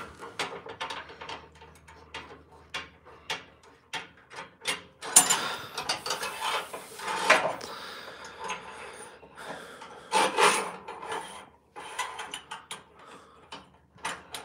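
A steel bar being slid in and out of welded steel sleeves by hand, metal scraping on metal in rasps. Irregular clinks and knocks come from the parts being handled, with the longest scrapes about five to seven seconds in and again around ten seconds.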